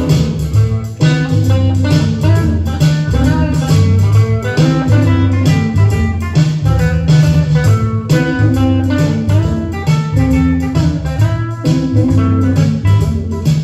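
A blues record playing an instrumental stretch: guitar over a walking bass line with a steady beat.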